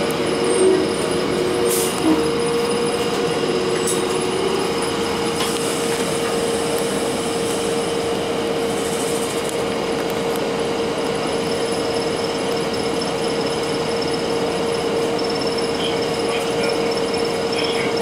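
Inside a Blue Bird CS transit bus: steady running noise of its Cummins ISC inline-six diesel and Allison automatic driveline, with a constant whine.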